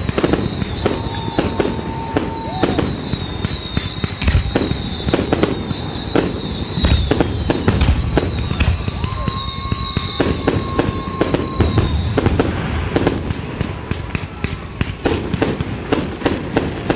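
Fireworks barrage: rapid, overlapping bangs and crackling from bursting shells, with repeated high whistles falling in pitch that stop about three-quarters of the way through while the bangs carry on.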